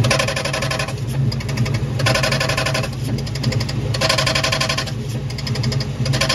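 Idling Ford Mustang Mach 1 with harsh metal-on-metal grinding from inside the bellhousing, coming in bursts of about a second roughly every two seconds over the steady engine hum. It is the clutch fork rubbing on the spinning pressure plate, which was throwing sparks and grinding metal off the plate, caused by a pivot ball stud that had backed out.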